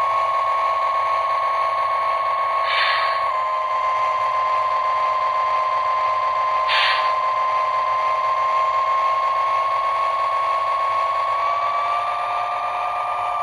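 Lionel LionChief Plus GP-7 O gauge locomotive, shell off, running with a steady whine from its electric motors and gearing while each end is lifted in turn to find the motor behind its shimmy. The pitch drops slightly about three seconds in and rises again near the end. There are two brief hissy scrapes about three and seven seconds in.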